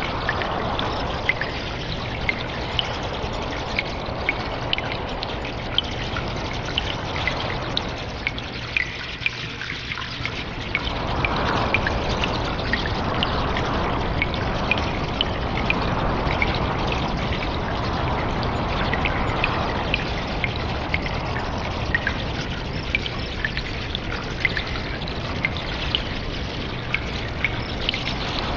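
Cave ambience of steadily trickling water with many small drips ticking over it; the flow swells and eases every couple of seconds and thins briefly about a third of the way in.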